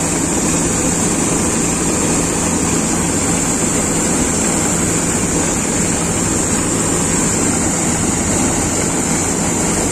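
Swaraj 8100 EX combine harvester running steadily while its unloading auger pours harvested wheat grain into a tractor trolley. There is a constant engine drone with a steady high hiss over it.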